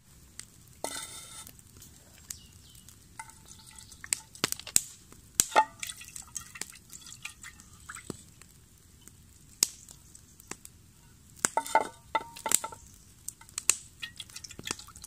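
Scattered knocks and short ringing metallic clinks as stones and a metal saucepan are set on a fire pit's metal rods, with water poured from a plastic bottle into the pan near the end.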